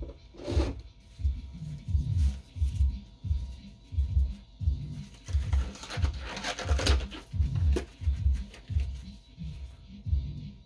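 Background music with a steady thumping bass beat.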